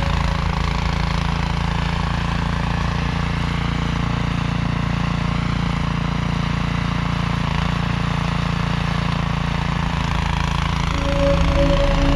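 An engine running steadily, a low even drone; near the end it grows louder and steady tones join in.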